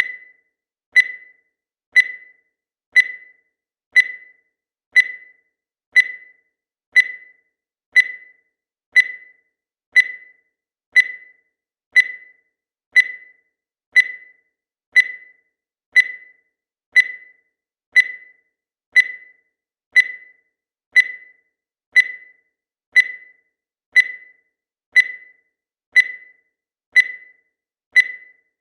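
Digital countdown timer beeping once a second: a short, high electronic beep that fades quickly, repeating evenly.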